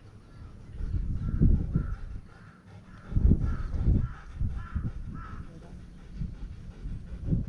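A crow cawing, a series of about eight short caws close together, over bursts of low rumbling noise.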